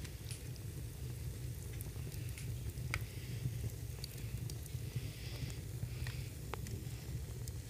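Small fire burning in a fireplace, giving sharp crackles and pops about once a second and a faint hiss over a steady low rumble.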